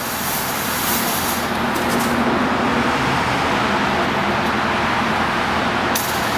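Fog machine spraying with a high hiss that cuts off about two seconds in and comes back near the end, over a steady rushing noise.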